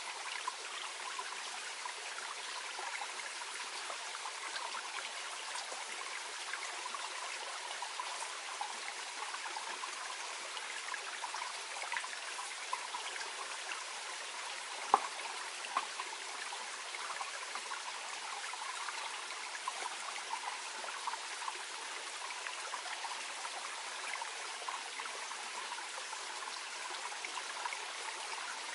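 A small clear mountain stream flowing gently, a steady even rush of water with many tiny splashes and trickles. A single sharp click about halfway through, followed by a fainter one.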